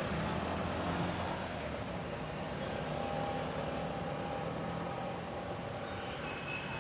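Steady background hum of road traffic, even and without sudden events.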